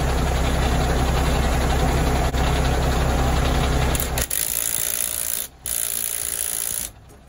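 Impact wrench hammering steadily on a truck's rear brake caliper bolt for about four seconds. It then runs with a lighter, hissier sound in two short bursts and stops near the end.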